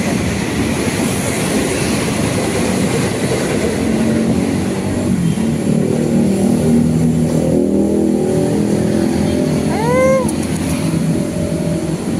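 Street traffic: a motor vehicle engine running steadily over a constant low rumble, with a short rising-and-falling call about ten seconds in.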